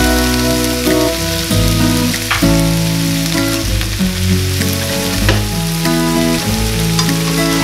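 Chopped onion, green pepper and green chiles frying in oil in a nonstick pan, a steady sizzle. Background music with held chords and a bass line plays over it.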